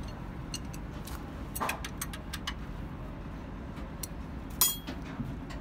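Hand tools working on a steel truck gearbox: a run of light, irregular metallic clicks, then one louder clink with a short ring about four and a half seconds in, over a steady low background rumble.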